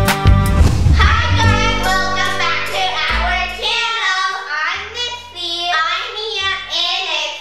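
Two young girls singing a cheerful intro song together over backing music. A music passage with a strong beat gives way to the singing about a second in.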